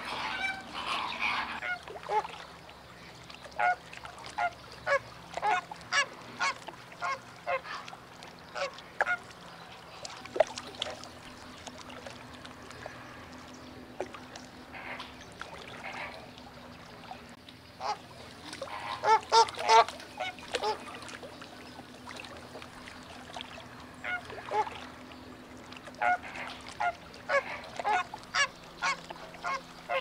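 A flock of greater flamingos calling: a stream of short calls, one after another, bunching into a dense cluster about two-thirds of the way through.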